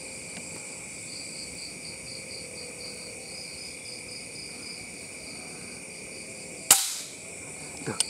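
Crickets and other night insects chirping steadily, one of them in an even pulsing trill. Near the end comes a single sharp rifle shot at a spotted dove, with a short tail.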